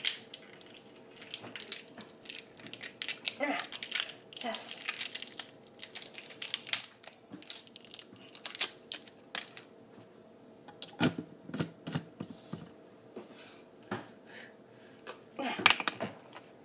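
Handling noise on a tabletop: a run of small clicks, taps and crinkles as something is worked open by hand, with a few short vocal sounds from the kids.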